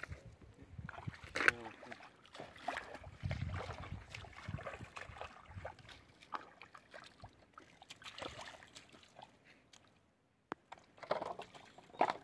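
Shallow lagoon water sloshing and splashing at the shoreline where an angler stands in the water working a spinning rod, with scattered irregular clicks and knocks; the sharpest comes about a second and a half in.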